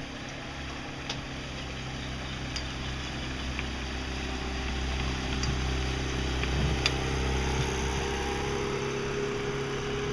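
Boat outboard motor running steadily, a small skiff's engine growing slowly louder as it draws close and passes, over a steady engine drone.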